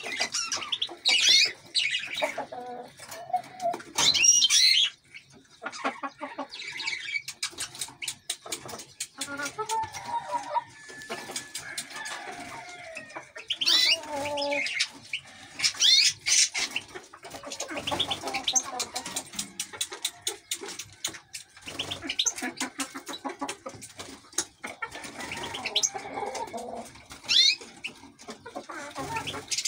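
Caged canaries and European goldfinches chirping and calling in short bursts of quick high notes, with scattered brief clicks.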